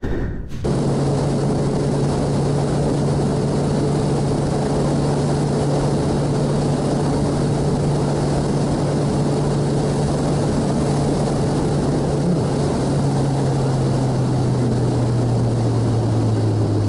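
Sport motorcycle engine running at a steady cruise under heavy wind noise on the microphone. The engine note drops slightly about thirteen seconds in.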